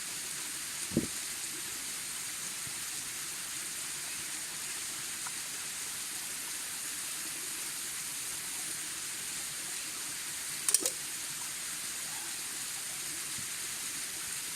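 Waterfall rushing steadily, a constant hiss of falling water. A soft thump comes about a second in and a sharp click near the end.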